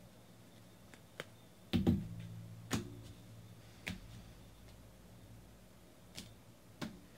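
Sharp clicks and taps of trading cards being handled on a table, about seven in all, the loudest a pair of knocks about two seconds in.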